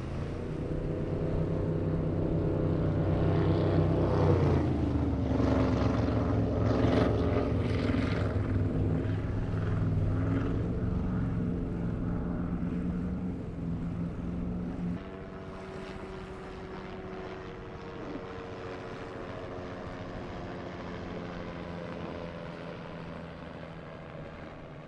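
A high-performance powerboat's engines running hard at speed, loud, with their pitch dropping about four seconds in as the boat passes. At about fifteen seconds this switches to the steadier, quieter drone of a Velocity powerboat's twin Mercury 400R outboards running fast.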